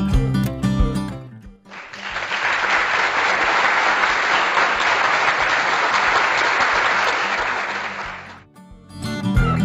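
Background guitar music, cut away about two seconds in for roughly six seconds of steady applause, then the music comes back near the end.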